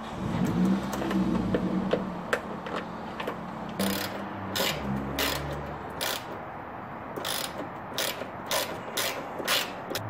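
Small hand ratchet clicking as it turns the nuts of a hood latch bracket snug, a string of separate sharp clicks about half a second apart through the second half.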